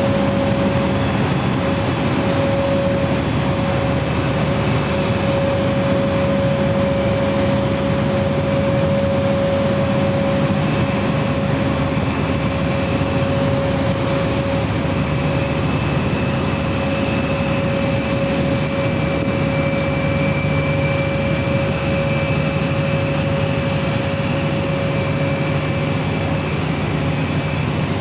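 Steady machine noise with a constant mid-pitched tone from airport ground support carts, ground power and pre-conditioned air, running while hooked up to a parked Airbus A380-800.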